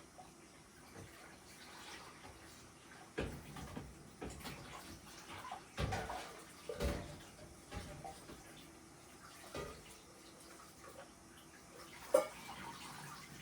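Washing up at a sink: water running from a tap, with dishes or utensils knocking against each other about half a dozen times, the sharpest knock near the end.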